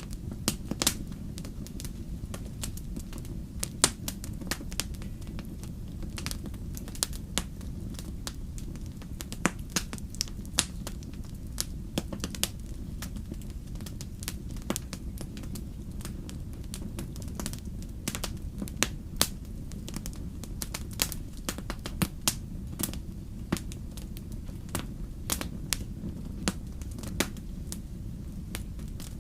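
Wood fire crackling: frequent sharp pops and snaps at irregular intervals over a steady low rumble.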